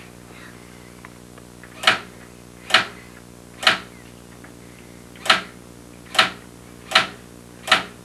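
Electric typewriter printing as children press its keys one at a time: seven sharp clacks, roughly a second apart.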